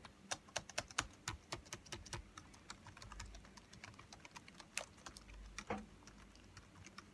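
Keys of a MacBook Pro's built-in keyboard clicking under quick, irregular presses, several a second, growing sparser near the end. The keys are being pressed to test the keyboard, which is not responding.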